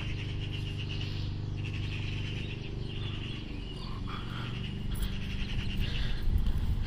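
Outdoor ambience of birds chirping in short repeated bursts over a steady low hum. Wind rumble on the microphone comes in near the end.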